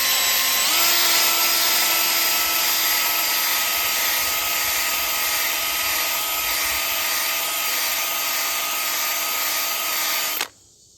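Power tool spinning a Velcro-backed sanding pad against a wheel rim to grind out curb rash: a steady motor whine with abrasive rasping, rising a little in pitch about a second in and cutting off suddenly near the end. The pad is close to worn out.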